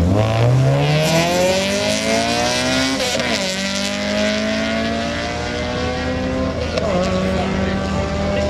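Drag car launching off the line and accelerating hard. The engine's revs climb steadily, drop sharply at an upshift about three seconds in and again near seven seconds, and climb again in each gear.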